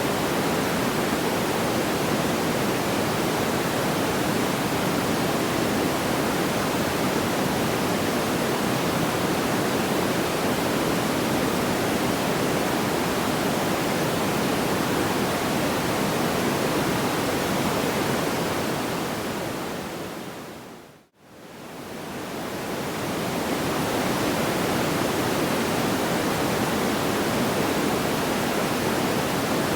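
Steady rushing noise, like pink noise, with its weight in the low middle and no separate crackles. About 21 seconds in it fades down to near silence and swells back over a few seconds.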